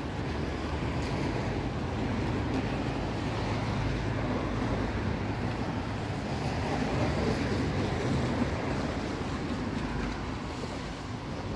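Steady rushing noise of a rainy street, with rain and traffic hiss on wet roads blending into one wash and no single event standing out.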